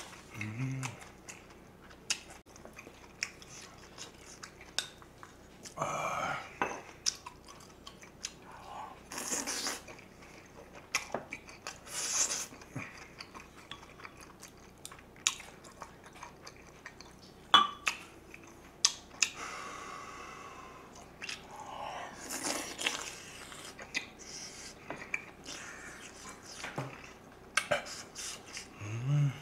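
Close-up eating sounds: chewing, with a spoon and other utensils clicking and scraping against dishes and an earthenware ttukbaegi stew pot in many short, irregular taps.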